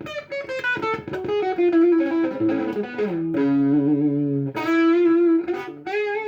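Electric guitar played through a Tiger Boost overdrive pedal: a lead phrase of single notes with bends and vibrato, some notes held for about a second.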